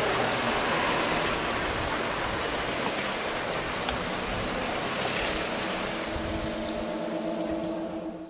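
A rushing noise like wind or surf, slowly fading, with a few faint held tones coming in over the last few seconds before it cuts off abruptly.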